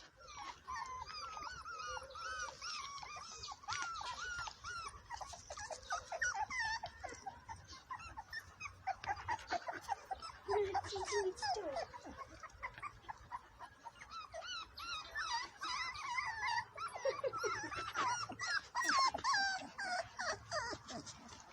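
Several bull terrier puppies whining and yipping at play: a constant stream of short, high-pitched overlapping calls, with a few lower, rougher ones now and then.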